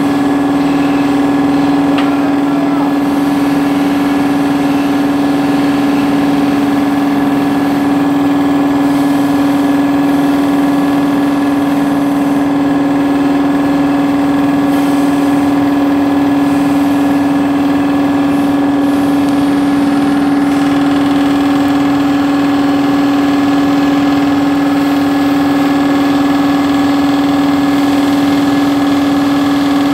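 A steady, unchanging mechanical hum: one strong low tone with fainter higher tones above it, holding the same pitch and loudness throughout.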